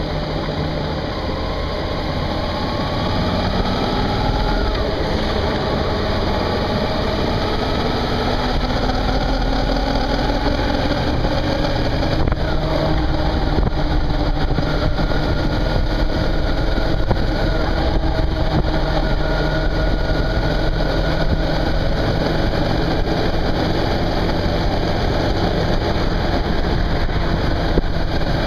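Suzuki V-Strom 650's V-twin engine running while under way with wind noise; the engine note rises gradually for the first few seconds as the bike gathers speed, then holds fairly steady at cruising speed.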